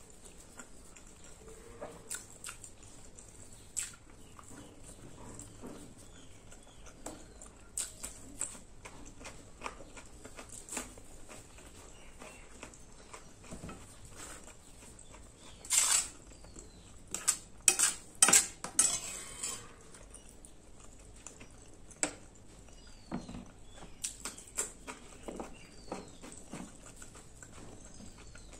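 Close-miked mukbang eating sounds: fingers and food clicking and scraping on a steel plate, with chewing in between. A cluster of louder sharp clicks and crackles comes about two thirds of the way in.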